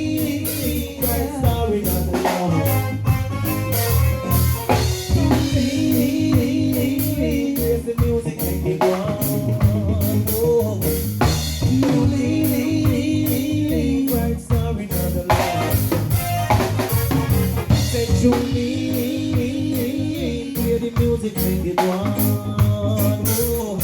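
Live reggae band playing an instrumental passage: drum-kit hits over a heavy bass line and a repeating sustained keyboard phrase.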